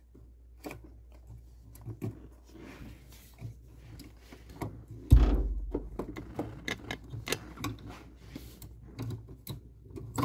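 Hands fitting a replacement HID bulb into the back of a Volkswagen Tiguan headlight housing: scattered small plastic clicks and rattles, with one loud dull thump about five seconds in.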